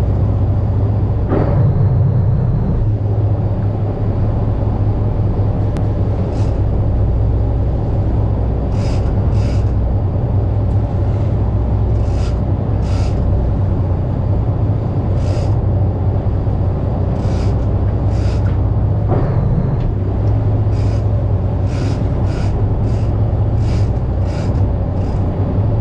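Fishing boat's inboard engine running steadily with a low, even hum, and brief hisses now and then.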